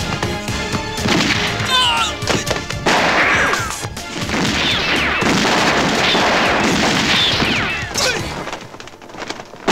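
Action-film soundtrack: music with sharp hits for the first few seconds, then a loud, dense din of crashes and gunfire-like bangs with short high whistling sounds, dropping away near the end.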